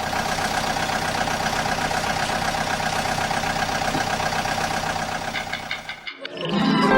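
Excavator engine running steadily, stopping about six seconds in. A short rising harp run follows at the very end.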